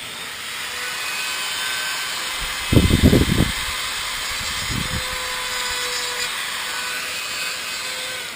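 Dremel rotary tool running steadily at high speed, drilling out a slot car's headlight hole so an LED will fit. The noise gets louder and rougher about three seconds in and again briefly near five seconds, as the bit bites into the part.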